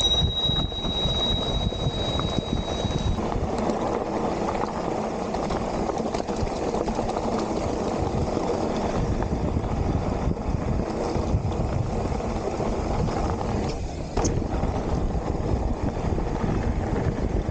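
Specialized Stumpjumper mountain bike on 2.8-inch plus tyres being ridden along a dirt trail: a steady rush of wind on the microphone over tyre and chassis rattle, with scattered knocks from the ground. A thin high steady squeal sounds for the first three seconds.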